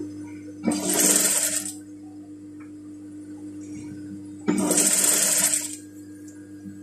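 Juki industrial sewing machine stitching through fabric in two short runs of about a second each, about four seconds apart, over a steady low hum.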